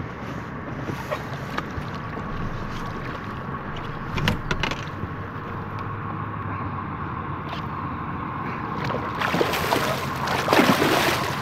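A hooked muskie thrashing and splashing at the surface beside the boat, loudest near the end. Under it, water lapping against the hull with a steady low hum, and a few sharp knocks a little before halfway.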